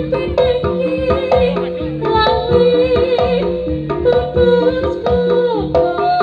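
Live Javanese jaranan gamelan music. Hand drums keep a quick, steady beat under short stepping pitched notes and a strong held melody line that bends now and then.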